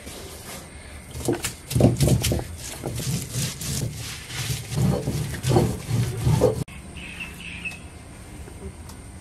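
Roasted chilli and coriander being ground by hand on a traditional flat grinding stone (arakallu): the stone scrapes and rolls back and forth in repeated strokes, then cuts off abruptly. Near the end a bird chirps briefly.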